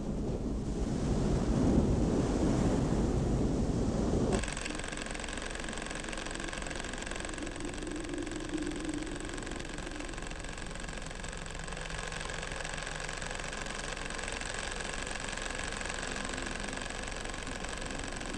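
A loud low rumble for about four seconds, cut off suddenly, then a steady electrical hum of laboratory machinery with a thin high whine.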